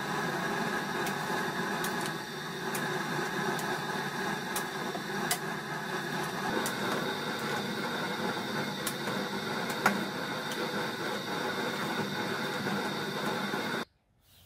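Mash being stirred with a long paddle in a stainless steel brew kettle: light scattered knocks of the paddle against the kettle over a steady rushing noise. The sound cuts off suddenly near the end.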